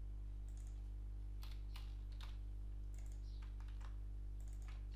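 Scattered computer keyboard keystrokes, a few at a time with short pauses, over a steady low electrical hum.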